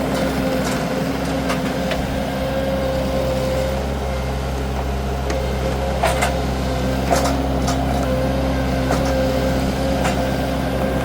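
Wacker Neuson SM120 mini skid steer's engine running steadily under load while pulling a bush stump out of the ground. A few sharp knocks and clanks come through, the loudest about six and seven seconds in.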